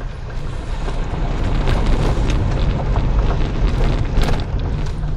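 Dacia Duster SUV driving over a rough off-road track, heard as a loud, dense rumble that grows over the first two seconds and then holds, with scattered short clicks and knocks.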